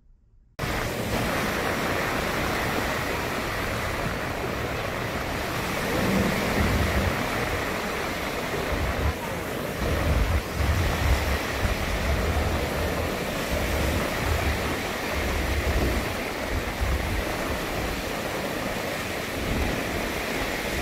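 Surf from small waves washing onto a sandy beach, a steady hiss that starts abruptly about half a second in, with wind buffeting the microphone in irregular low rumbles.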